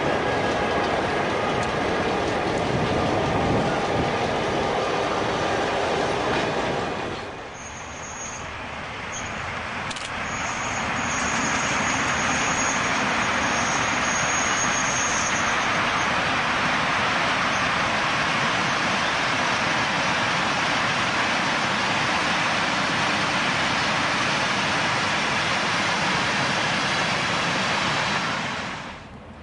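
V/Line T-class diesel-electric locomotives running, their engines and wheels on the rails giving a steady noise. After a cut about seven seconds in, several of the locomotives work in multiple past the microphone at the head of a freight train, and the sound fades out near the end.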